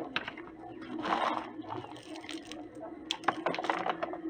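Toy construction vehicles at work: scattered small clicks and crunches over a faint steady motor hum.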